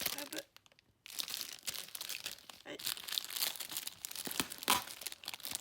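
Packing material being crinkled, rustled and torn by hand while a tightly packed parcel is unpacked, a busy run of crackling after a short pause about a second in.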